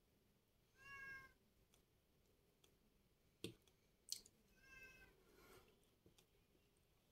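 A cat meowing twice, faintly: one short meow about a second in and a slightly longer one about five seconds in, with two sharp clicks between them.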